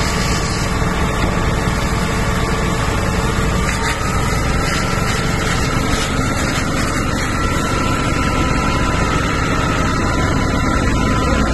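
Steady, loud noise of an engine running, with a faint steady whine, under the rush of a fire hose's water jet on a burning van.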